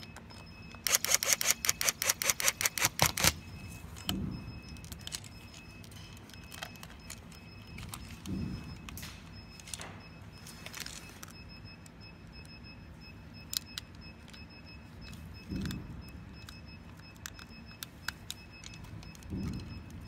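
Assembly handling noise on a plastic infusion pump housing: a rapid run of about fifteen sharp clicks in a little over two seconds about a second in, then occasional soft knocks and small clicks as parts and wires are fitted.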